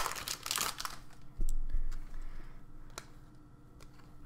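Foil trading-card pack crinkling as it is torn open. Then comes a dull thump and a few light clicks of cards being handled.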